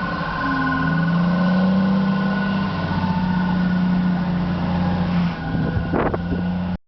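Engine of a snow-ploughing vehicle running steadily, with a sharp knock about six seconds in.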